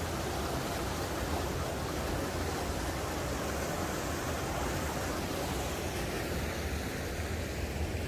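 Mountain stream of ice meltwater rushing over rocky rapids and small falls, a steady rush that thins slightly near the end.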